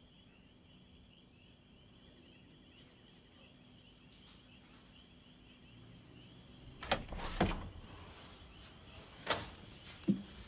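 Quiet night ambience of insects chirping in a steady high trill, with short repeated chirps. About two-thirds of the way in, several sharp knocks and rustles break in.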